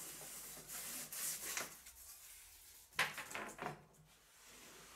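A hand rubbing and brushing along the freshly sawn edge of a wooden board. About three seconds in comes a brief clatter of wood as the thin offcut strip is handled.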